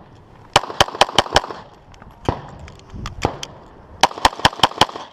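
Rapid pistol fire on a timed steel-plate string: five quick shots about a fifth of a second apart, a few slower single shots, then another quick run of five shots near the end.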